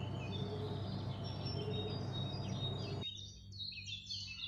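Small birds chirping in quick high twitters over a steady low hum and hiss. About three seconds in, the hum and hiss cut off abruptly and the chirping grows denser.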